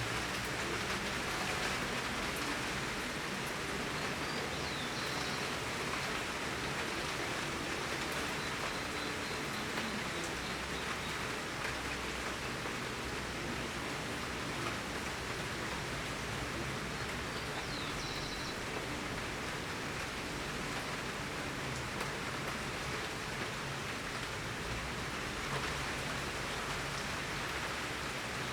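Heavy summer rain pouring steadily in a garden, a dense even hiss of falling drops.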